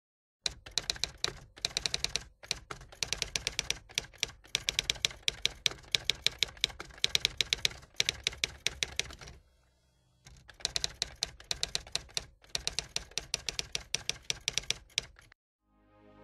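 Typewriter keys striking in quick runs, with short breaks and a longer pause about two-thirds of the way in, stopping just before the end.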